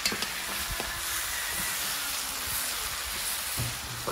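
Chicken pieces sizzling steadily as they brown with onion, garlic and ginger in a large metal pot, while a metal spoon stirs them with a few light clinks against the pot.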